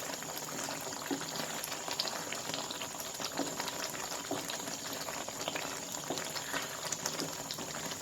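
Thick pickle gravy with dried curd chillies simmering in a pan on a low flame, bubbling steadily with small, irregular pops as it boils down and thickens.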